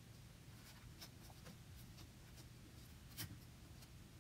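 Faint rustling and light taps of construction-paper cut-outs being handled and laid on a tabletop, with one sharper tap about three seconds in.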